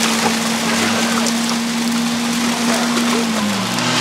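Engine of an overturned off-road buggy running at a steady speed over a steady hiss, its pitch falling near the end as the revs drop.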